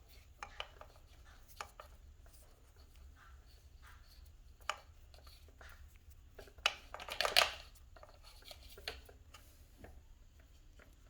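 Hand-handling noises as motor wires and rope are worked: scattered small clicks and taps, with a louder burst of rustling and scraping about seven seconds in.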